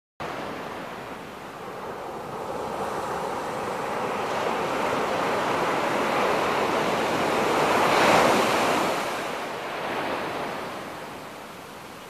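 Ocean surf washing up a sandy beach: a steady rush of breaking waves that builds to its loudest about eight seconds in and then falls back.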